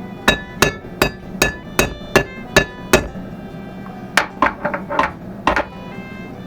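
Hand hammer striking metal, driving a part into a wheel hub during a front wheel bearing replacement: eight steady blows about two and a half a second, each with a short metallic ring, then a pause and five lighter, less even taps.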